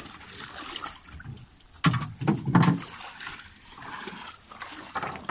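Shallow water sloshing and trickling at the edge of a pebble shore, with a louder burst of noise about two seconds in.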